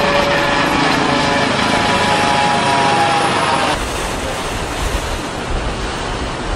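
Turbine helicopter flying overhead, a steady whine of several tones over rotor noise. About halfway through it cuts to a boat engine's low rumble with the rushing of its wake and water.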